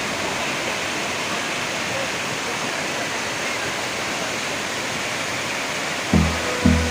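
Steady rush of falling water from a waterfall. About six seconds in, music starts with a pulsing bass beat.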